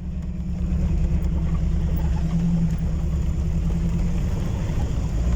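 A motor vehicle's engine running steadily as it drives, a low, even drone with no clear revving.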